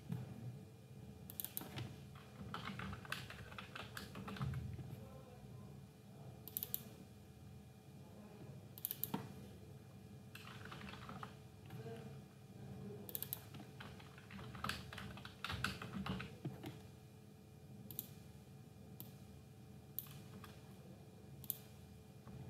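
Computer keyboard typing in short bursts of key clicks with pauses between them, over a faint steady hum.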